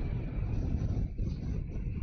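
Twin-engine jet airliner on final approach: a steady low engine rumble with a faint, steady high whine.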